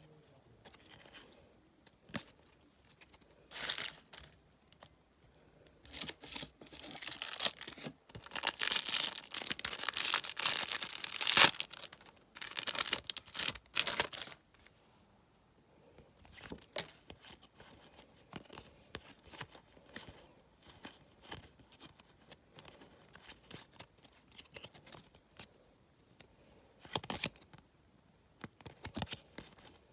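Trading-card packet wrapper being torn open and crinkled, loudest from about six to fourteen seconds in. After that, only soft scattered clicks and rustles.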